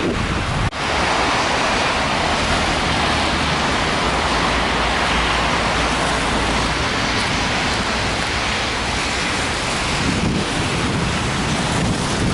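Strong wind blowing and buffeting the microphone: a steady, loud rush of noise, with a brief drop just under a second in.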